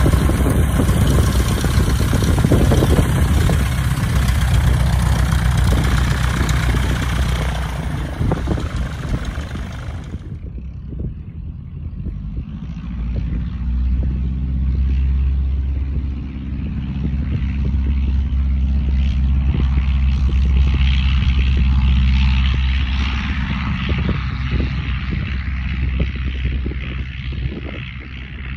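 1945 Luscombe 8A's propeller and 65 hp Continental four-cylinder engine running as the airplane taxis close by. After a cut about ten seconds in it is heard from farther off at takeoff power on its takeoff run, lifting off near the end.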